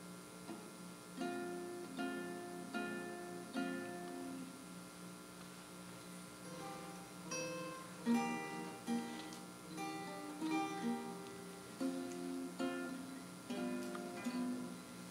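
Solo acoustic guitar playing a slow piece: single plucked melody notes over chords, each ringing and fading, with the loudest note about eight seconds in.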